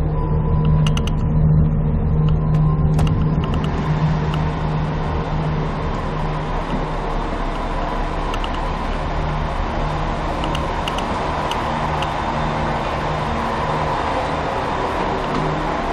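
Steady low hum of the diesel railcar's engine running, heard from inside the passenger car, with a few light clicks in the first seconds. A wider rushing noise joins about four seconds in.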